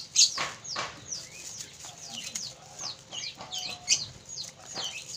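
Lovebirds chirping over and over in short, high calls that slide downward, with a few crisp snips of scissors cutting dry rice stalks, the loudest just after the start and about four seconds in.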